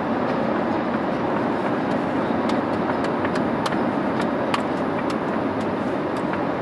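Steady road and engine noise heard inside the cabin of a moving car, with a few faint light clicks.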